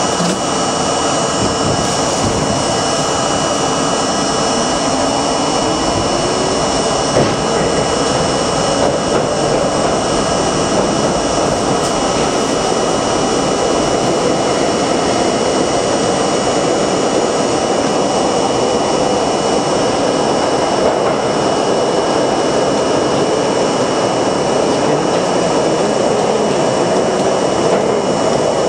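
A New York City subway train running through a tunnel, heard from inside the car: a loud, steady noise of wheels on rails. Over the first several seconds a motor whine rises in pitch as the train gathers speed.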